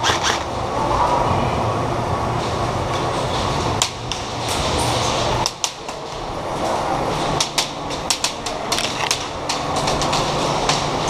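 Irregular sharp cracks and clicks of airsoft guns firing and BBs striking, over a steady background din.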